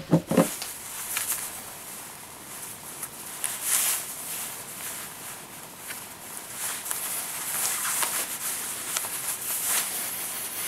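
Necktie fabric swishing and rustling as it is pulled and slid through the knot against the shirt collar, with two dull thumps right at the start.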